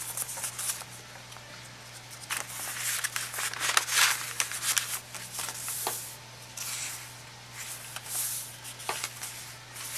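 Paper and cardstock rustling and sliding in irregular bursts as journal cards, a fold-out envelope flap and pages are handled and turned, with a faint steady low hum underneath.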